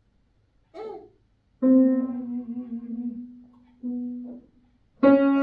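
Keyboard notes: one held note starting about one and a half seconds in that slowly fades, a shorter note a couple of seconds later, and a louder note just before the end. A brief sound with a wavering pitch comes about a second in.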